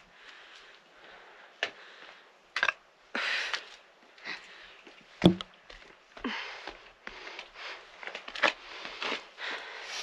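Someone scrambling down through rock: breathing hard and scuffing on the rock, with several sharp knocks. The loudest knock comes about five seconds in.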